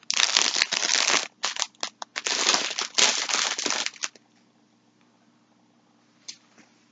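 Wrapping crinkling in bursts as skeins of yarn are handled for about four seconds, then stopping.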